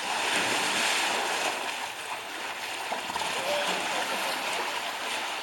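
Steady rush of splashing water, stirred up by an African elephant in its pool.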